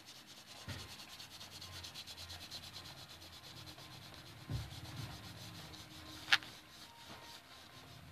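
Blue pastel crayon rubbed hard over paper in quick back-and-forth strokes, a faint scratchy stroking several times a second. There is a soft knock about four and a half seconds in and a sharp click about six seconds in.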